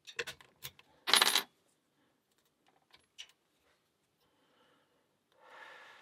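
Metal clicks and clinks from a Master Lock No. 3 laminated steel padlock and its picking tools being handled, with one loud metallic clack about a second in. Near the end, a short scratchy rattle as the pick works in the keyway.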